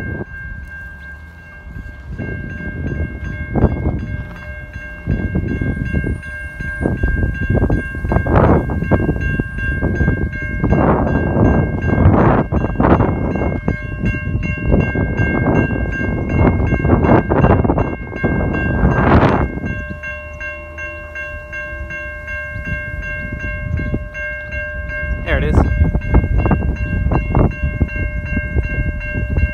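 Railway level crossing warning bell ringing steadily while the boom gates are down, a signal that a train is approaching. Loud, uneven gusts of rushing wind noise buffet the microphone over it.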